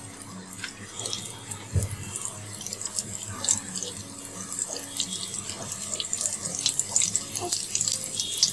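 Potato-stuffed dough rolls deep-frying in hot oil: a steady sizzle full of small crackles and pops. The rolls are left unturned while their outside firms up.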